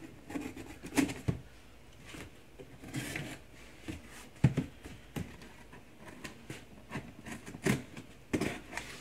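Utility knife slicing packing tape on a cardboard box, with irregular scrapes, taps and rustles as the box is turned and handled.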